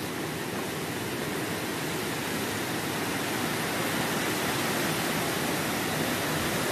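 Cyclone's heavy rain and wind, a steady rushing noise that grows slightly louder.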